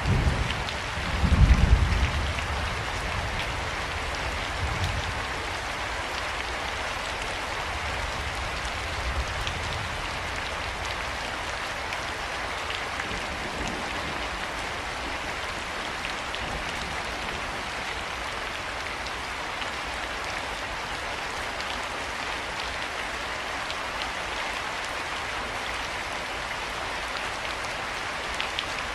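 Steady rain falling, an even patter with many small drop hits. About a second and a half in comes a short, loud low rumble, and a fainter one follows a few seconds later.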